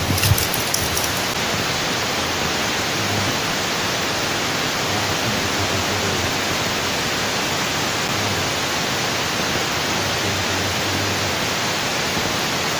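Steady, even rushing of water, with no change in level throughout, and a few faint clicks in the first second.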